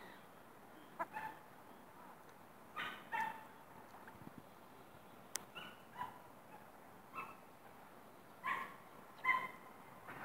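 Ruddy shelduck calling: short calls repeated every second or two, some in quick pairs. A single sharp click about five and a half seconds in.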